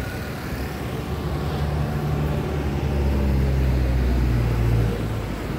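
A motor vehicle passes close by, its low engine hum building over a few seconds and then dropping away about five seconds in.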